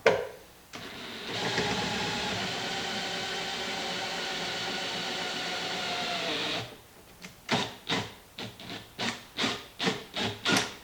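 A knock, then a power drill runs steadily for about six seconds, drilling out a pop rivet, and stops. It is followed by about nine sharp hammer taps, roughly three a second, driving the rivet's centre post out with a punch.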